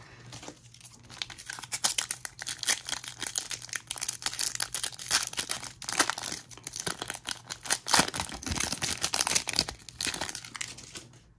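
Plastic trading-card packaging crinkling as it is handled by hand: a dense run of crackles, loudest about eight seconds in, that dies away near the end.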